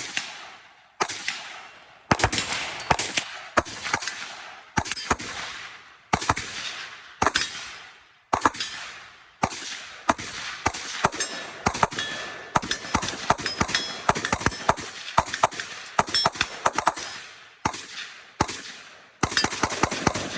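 Firearms being fired at an outdoor range: irregular gunshots, some single and some in quick strings of several shots, each trailing off in an echo.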